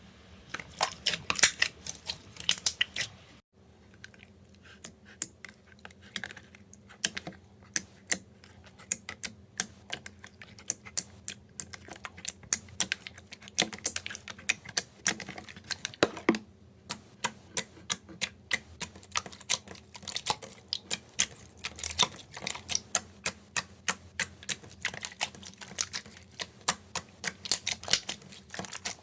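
Slime being squeezed and pressed by hand, giving a rapid, irregular run of sharp clicks and pops, with a brief break about three and a half seconds in.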